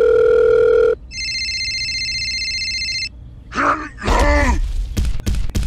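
Telephone sound effects: a steady dial tone that stops about a second in, then an electronic ringing tone for about two seconds. After it comes a cartoon voice grunting and groaning, with a few sharp clicks near the end.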